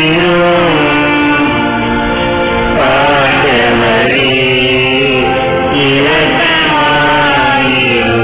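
Liturgical hymn sung at Mass with instrumental accompaniment, the melody moving in phrases of held notes.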